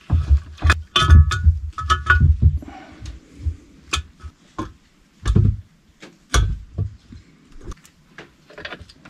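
Hand tools and metal parts clinking and knocking during jet ski engine reassembly. Scattered sharp clicks throughout, with a cluster of heavier thumps and brief metallic rings in the first couple of seconds.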